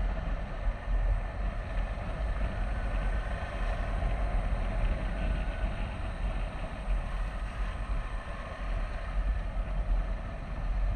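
A KTM 390 Adventure's single-cylinder engine running steadily at cruising speed. Heavy wind rumble on the microphone and road noise run under it.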